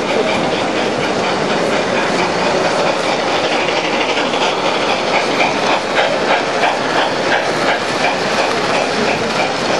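American Flyer S-gauge model steam locomotive and freight cars running along the layout track, the wheels making a fast clickety-clack over the rail joints. The clicking grows stronger about halfway through as the train passes close.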